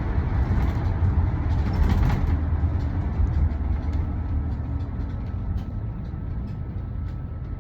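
Low, steady rumble of road traffic with no horns sounding, slowly fading as the vehicles move off.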